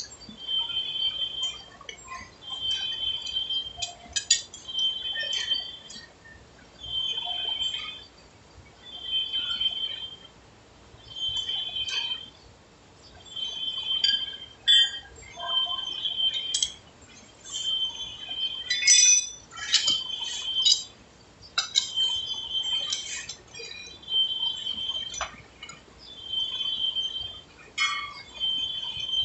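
Heavy lathe cutting a large steel shaft: a high metallic ringing squeal from the cut comes round about every second and a half to two seconds, with sharp clinks of metal chips in between.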